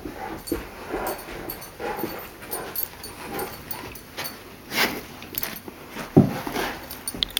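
A dog whining in short, repeated whimpers, roughly one a second, with one louder, lower sound about six seconds in.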